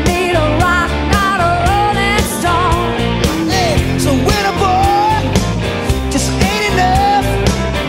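Rock song with a sung melody over a steady drum beat and bass.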